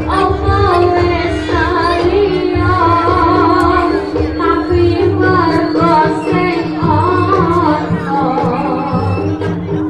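Music for a barong dance performance: a woman singing a wavering, ornamented melody over instrumental accompaniment, with a steady held tone beneath and low drumming.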